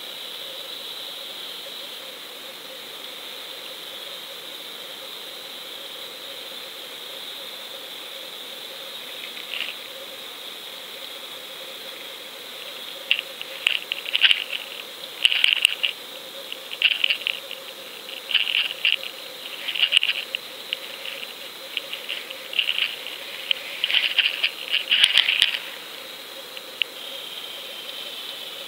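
Steady hiss of a GoPro recording underwater in its housing, with a run of sharp clicks and crackles, about one cluster a second, through the second half.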